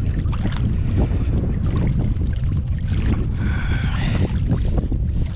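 Wind buffeting the microphone over water sloshing and splashing as a person wades deeper than waist-high through a lake. About three and a half seconds in there is a brief high-pitched tonal sound lasting under a second.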